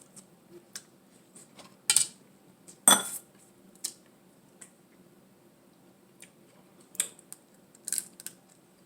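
Eating at a table: a handful of sharp clicks and clatters of utensils and dishes, the loudest about three seconds in.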